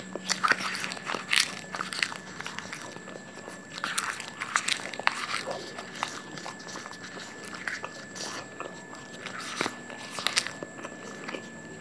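A man biting and chewing raw jamun leaves close to a clip-on microphone: crisp crunching and crackling bites, coming in clusters near the start, around four seconds in, and again near the end.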